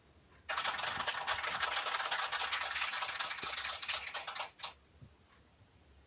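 A scratchy crackling noise starts about half a second in and runs for about four seconds. It ends with a short burst, and a few faint ticks follow.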